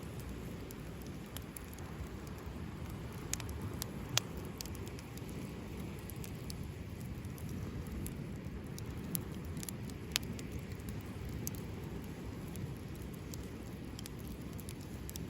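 Campfire burning, with scattered sharp crackles and pops over a steady low rumble; the loudest pops come about four and ten seconds in.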